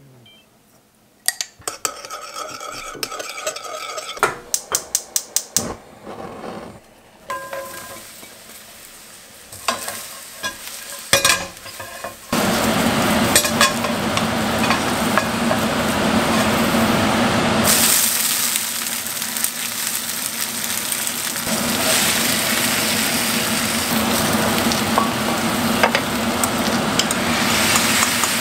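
A spoon clinking against a ceramic bowl as a sauce is stirred, including a quick run of taps. About twelve seconds in, sliced mushrooms start sizzling loudly in a hot frying pan, stirred with a wooden spatula, and the sizzle holds steady to the end.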